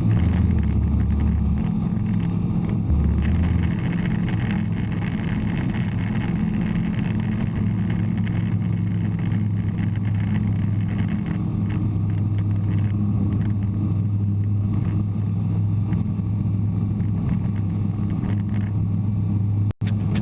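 Steady drone of a Bristell light aircraft's piston engine and propeller in flight, an even low hum that does not change. Near the end the sound drops out for an instant.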